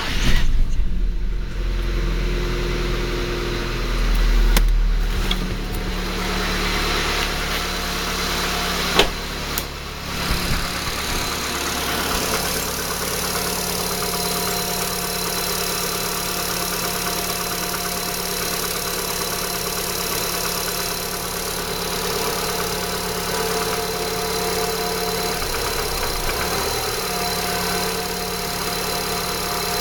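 C20SED 2.0-litre four-cylinder petrol engine running just after starting: a brief rev about four seconds in and a sharp click near nine seconds, then it settles into a steady idle. It is run to show a knock in the engine.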